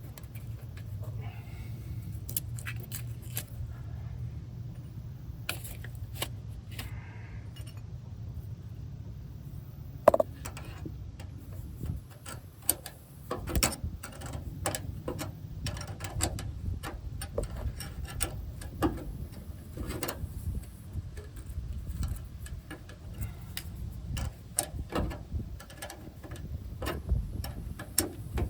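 Metal hand tools clinking and tapping as a wrench is worked on a stubborn brake line nut: many short clicks and taps, with one sharp knock about ten seconds in, over a steady low hum.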